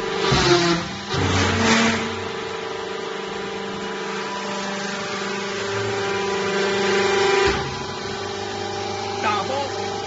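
Vertical hydraulic baler's electric motor and hydraulic pump running with a steady hum, with loud metal clanks about half a second in and again between one and two seconds in. The machine note swells louder for a couple of seconds and cuts back with a knock about seven and a half seconds in.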